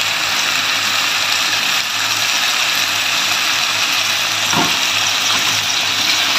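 Mutton curry sizzling in oil in a steel pot on a gas stove, a steady dense crackling hiss as its liquid cooks off and the ghee separates, the sign that the curry is in its final stage. A low steady hum runs beneath.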